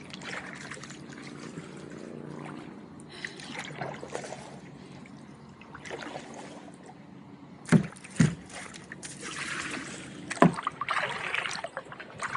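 Kayak paddle strokes: water trickling and splashing off the double-bladed paddle as the kayak moves along, with a couple of sharp knocks about eight seconds in and another near ten and a half seconds.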